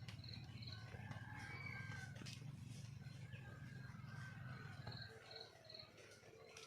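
Red junglefowl calling faintly, with drawn-out calls. Short high chirps come in quick threes at the start and again about five seconds in, over a low hum that fades out about five seconds in.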